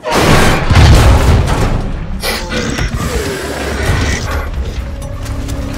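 Film sound design: a sudden heavy boom, then a rough mechanical rumble that is loudest about a second in, under a dark music score with a steady low drone coming in near the end.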